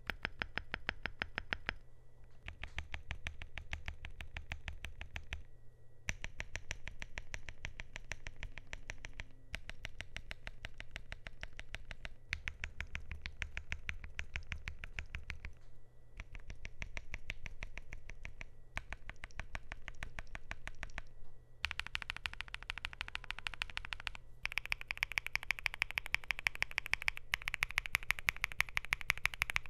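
Typing on a Luminkey LK65 mechanical keyboard with lubed Gateron Sylva switches on a polycarbonate plate and Thera75 keycaps: rapid keystrokes in runs of a few seconds with brief pauses between them. In the last third the keystrokes get brighter and louder.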